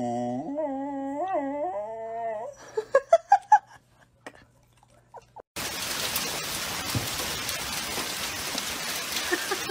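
A dog howling along in a long, wavering howl, then four short sharp yips about three seconds in. About halfway through, steady rain takes over.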